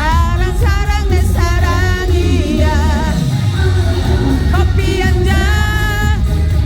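Female trot singer singing live over a loud backing track with a heavy bass beat, her voice sliding between notes with vibrato on the held notes.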